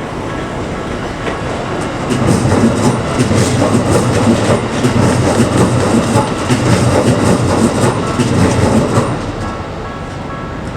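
Keikyu electric train passing over a level crossing, its wheels clattering over the rail joints in a rapid rhythm, loud from about two seconds in until it fades near the end. Under it the crossing's warning bell keeps ringing with a steady repeating tone.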